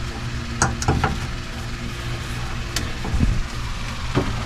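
A few light clicks and knocks of a wire bundle being handled and clipped in place, over a steady low hum.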